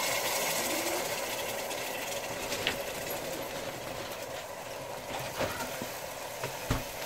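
Hot sugar syrup bubbling and sizzling in a steel pot as parboiled rice is tipped in from a metal colander and pushed along with a wooden spatula: a steady hiss that eases a little, with a few light knocks of the spatula.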